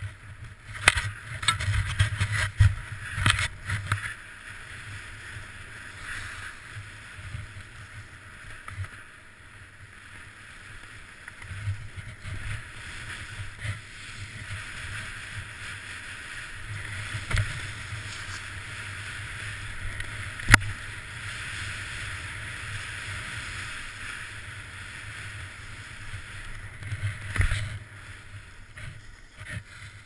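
Downhill skis scraping and hissing over packed and chopped snow on a continuous run, with a low rumble underneath. A burst of clattering knocks in the first few seconds, then single sharp knocks about halfway through and again near the end.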